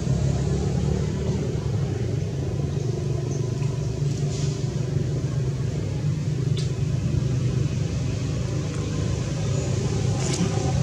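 A motor running steadily at constant speed, a low engine rumble with a steady pitch, with a few faint clicks over it.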